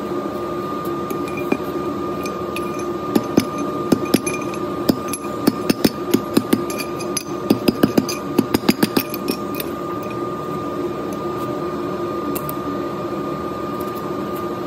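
A run of sharp, irregular metal knocks and taps on steering rack parts from about three to nine seconds in, quickest and loudest near the end of the run, over a steady background hum.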